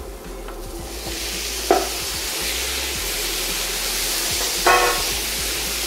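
Diced butternut squash sizzling as it fries in butter with onion and garlic in a pan, stirred with a silicone spatula; the steady sizzle builds up about a second in as the cubes go in. A single knock about two seconds in and a short squeak near the end.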